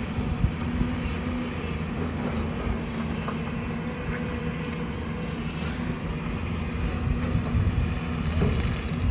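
Excavator's diesel engine running steadily, with a few faint clicks and knocks.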